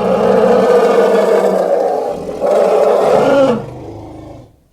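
Elephant giving a loud, harsh call in two long stretches with a short break about two seconds in, then tailing off quietly and fading out.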